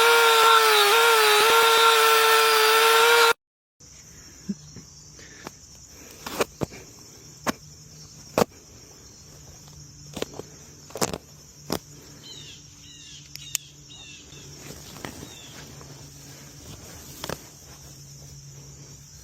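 A loud, steady, high whine with a brief dip in pitch cuts off suddenly after about three seconds. Then insects chirr steadily, with a faint low hum, sharp knocks every second or two and a few short bird chirps.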